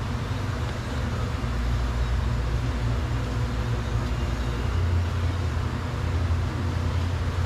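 Steady low rumble of running machinery, a little stronger about five seconds in, with no distinct clicks or knocks.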